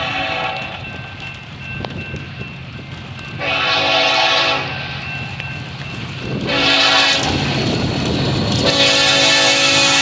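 Union Pacific freight locomotive's multi-chime air horn sounding the grade-crossing warning of long, long, short, long blasts, the last held through the end. Under the horn runs the rumble of the approaching locomotives and wheels, growing louder.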